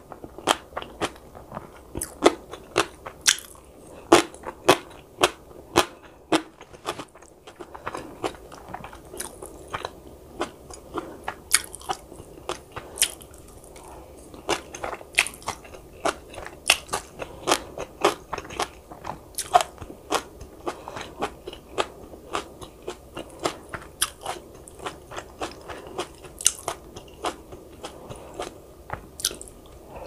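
A person eating, chewing with frequent crisp crunches, two or three a second at an uneven pace.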